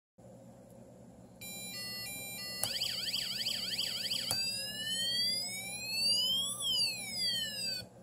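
UM3561 siren generator chip sounding through a small speaker, switched through three siren tones. First comes a quick pattern of stepped, jumping beeps, then a fast up-and-down warble, then one slow rising and falling wail. Each change is marked by a click of the selector toggle switch.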